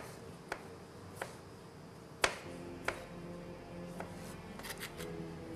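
Kitchen knife blade knocking on a cutting board as pickled cucumbers are sliced: scattered sharp knocks, the loudest a little after two seconds in and a quick run of them near the end.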